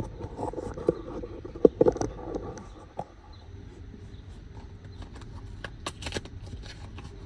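Handling clicks and knocks as a new spark plug is taken out of its packaging: a rattly run of taps over the first two seconds or so, two sharper knocks a little under two seconds in, then another brief cluster of clicks about six seconds in.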